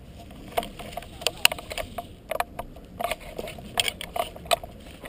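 Handling and movement noise: about a dozen irregular clicks and crackles, spaced unevenly, from a player shifting with a replica M4 rifle carrying the camera among dry scrub. They are not the even rapid run of an airsoft gun firing.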